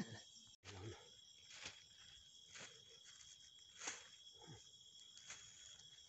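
Faint, steady chorus of night crickets trilling at a high pitch, with a few soft clicks scattered through it.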